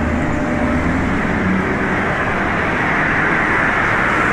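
Steady city street traffic noise, with a low rumble fading in the first second and a hiss swelling toward the end as a vehicle passes.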